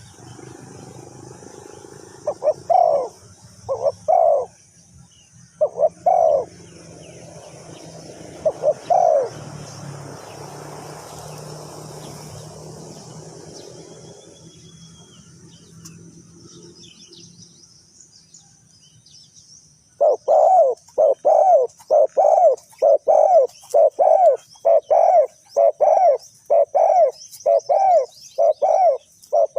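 Spotted dove cooing: a few scattered coos in the first ten seconds, then, about two-thirds in, a quick, even run of coos, roughly one and a half a second. Fainter high chirping runs underneath.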